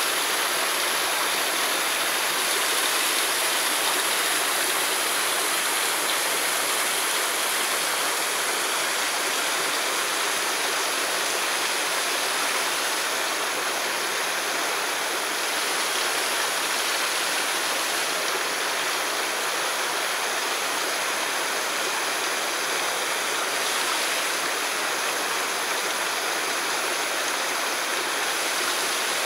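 Steady rush of fast-flowing water, running without letup.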